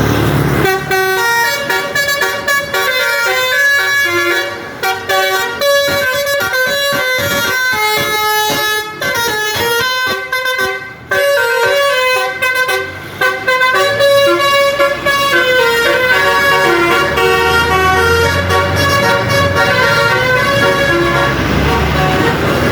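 A tour bus's basuri, a multi-tone musical horn, plays a fast tune of short notes that keep stepping in pitch. In the second half a low rumble from the bus engine sits underneath.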